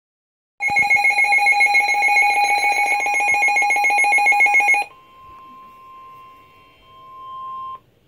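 Weather radio's alert alarm: a loud electronic beep pulsing many times a second, which stops about five seconds in. It gives way to the quieter steady 1050 Hz warning tone of the NOAA Weather Radio broadcast, the signal of a severe thunderstorm warning, which cuts off just before the end.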